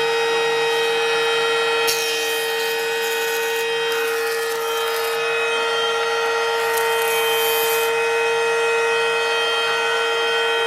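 Woodworking jointer running with a steady whine, its cutterhead shaving a pine board in three bursts of rushing cutting noise as the board is pushed over the knives.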